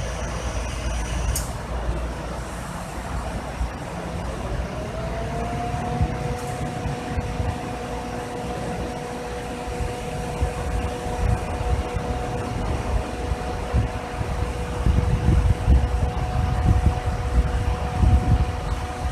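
Chevy S10 pickup engine running at idle with a steady low rumble, during an A/C recharge. About five seconds in, a two-note machine hum rises in pitch and then holds steady.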